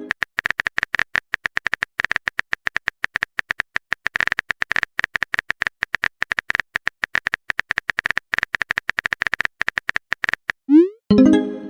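Phone keyboard typing sound effect: rapid, identical clicky taps, about ten a second, in runs with short pauses. Near the end a short rising blip and a pitched chime sound, a message-sent alert tone.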